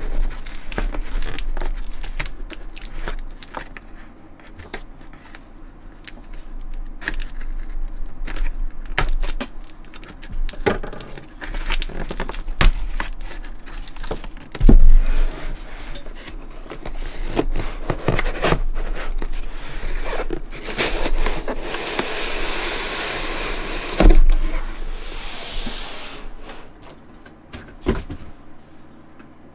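Cardboard shipping box being opened by hand: taped cardboard flaps scraping and crackling, and the product box rubbing and sliding against the cardboard, with many small knocks. Two loud thumps, one about halfway through and one later, as the box is handled.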